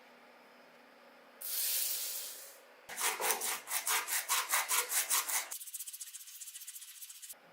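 A short hiss, then rapid back-and-forth rubbing or scraping strokes, like hand sanding, at about five a second. In the last two seconds the strokes come faster and thinner.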